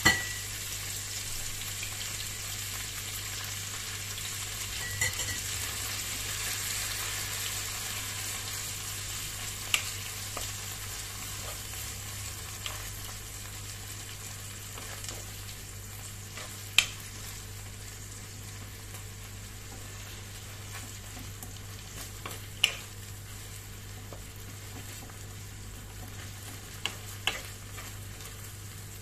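Corned beef with onion and garlic sizzling in oil in a wok while a wooden spatula stirs and breaks it up. The sizzle is steady and slowly fades, with a few sharp knocks of the spatula against the pan, the loudest right at the start and about seventeen seconds in.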